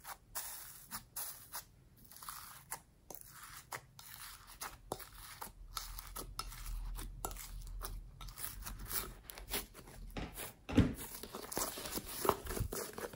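Homemade slime being pressed, peeled up and kneaded by hand, with glitter being worked into it: a run of sticky crackles and small pops as it is squeezed and pulled, with one louder pop near the end.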